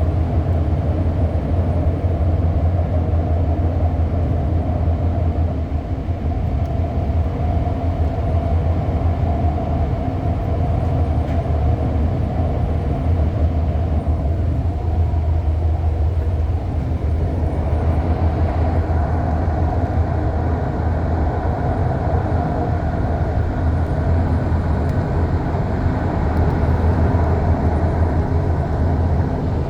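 Electric REM light-metro train running, heard from inside the passenger car: a steady low rumble of wheels and motors with a hum. About halfway through the sound dips briefly, then a higher motor whine rises.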